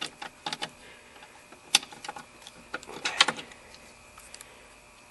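Screws being taken out of a plastic under-dash cover with hand tools: irregular sharp clicks and small knocks, with a dense cluster about three seconds in.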